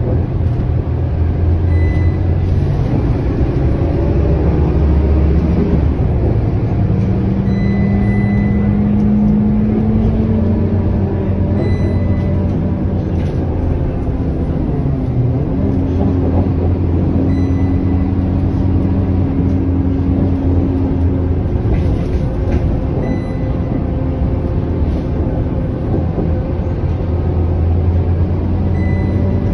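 Cabin sound of a Scania K230UB city bus under way: a steady low engine hum with road and tyre noise. About a quarter of the way in the engine note rises as the bus picks up speed, then holds.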